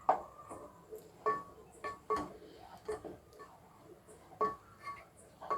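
A ladle stirring thick reduced milk with semolina in a pot, knocking and clinking against the side about ten times at an uneven pace, each clink ringing briefly.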